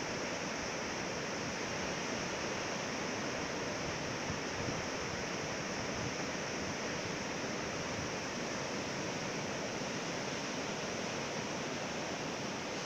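Ocean surf breaking on a sandy beach, a steady, even wash of noise with no distinct crashes.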